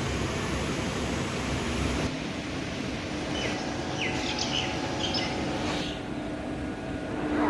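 Outdoor noise with a steady low hum that sets in about two seconds in, and a few short bird chirps in the middle.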